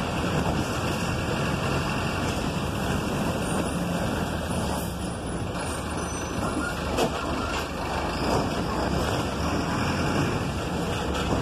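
City bus driving, heard from inside the cabin near the driver: steady engine hum and road noise, with a couple of short knocks about halfway through.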